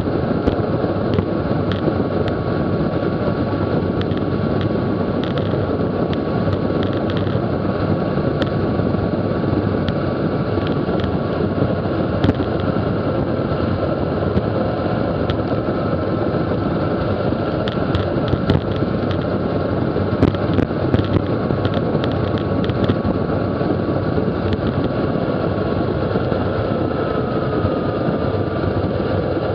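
Heavy wind rush on the microphone of a camera riding on a road bicycle coasting downhill at about 45 mph. Through it runs a faint steady whine that dips slightly in pitch near the end, with scattered small ticks.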